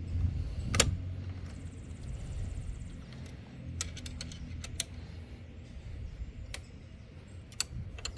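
Metal hand tools clinking: an Allen key and a 13 mm wrench tapping and scraping against an aluminium bracket and its screw as the screw is tightened and the wrench is lifted off. Scattered sharp clicks, a cluster of them about four seconds in, over a steady low rumble.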